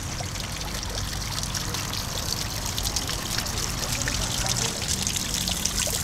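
Water trickling and splashing steadily, with many small crackling drips over it.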